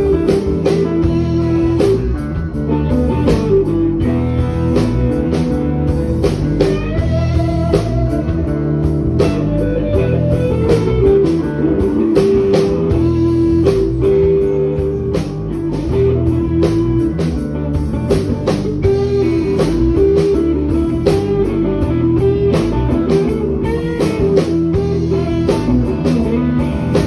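Live blues band playing an instrumental passage: amplified electric guitar lead with bent notes over rhythm guitar and a steady drum beat.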